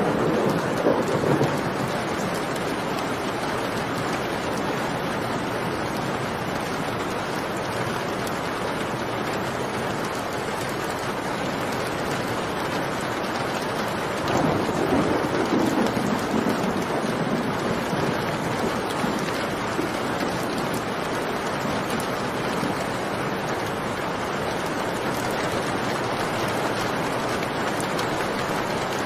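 Steady rain with thunder rumbling, once at the start and again about halfway through, each lasting a few seconds.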